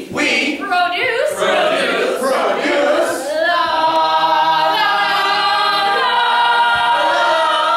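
Unaccompanied group of voices singing: a voice first, then the ensemble joins in a held, sustained chord from about three seconds in.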